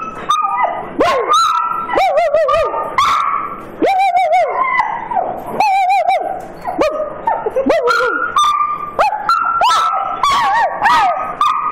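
Large dog making a run of high-pitched whining yips and short 'woo-woo' howls, one call after another, each bending up and down in pitch.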